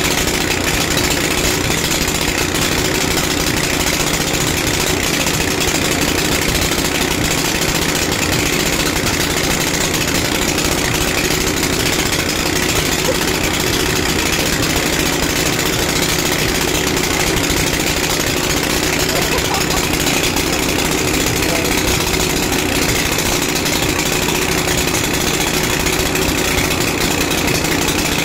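Portable concrete mixer's engine running steadily at an even idle, with no change in speed.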